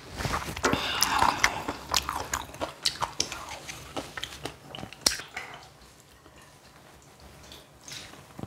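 Close-up mouth sounds of a person eating clam kalguksu and spicy kimchi: biting and chewing with crisp crunches and clicks, busiest in the first five seconds, then settling into softer, quieter chewing.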